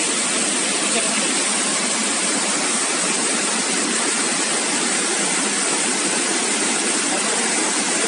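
Waterfall cascading over rock ledges: a steady rush of falling white water.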